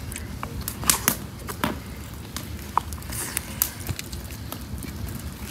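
People eating crisp-crusted fried bream with their hands: irregular crunching, chewing and mouth clicks.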